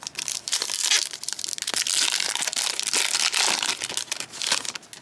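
A trading-card pack wrapper being torn open and crinkled by hand: a dense, crackly rustle that stops just before the end.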